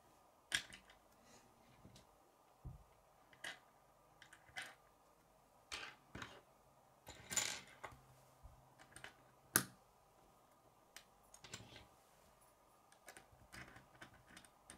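K'nex plastic pieces clicking and tapping as they are handled, snapped together and set down on a wooden table: scattered sharp clicks, with a short rattle about seven seconds in.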